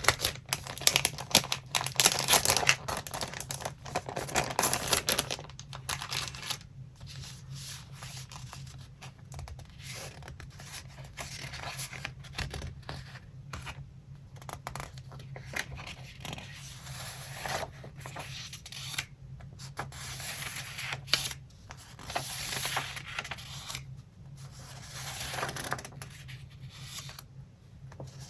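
Paper being handled in collage work: busy crackly paper noise for the first five seconds or so, then quieter, scattered rustles and scratches, over a faint steady low hum.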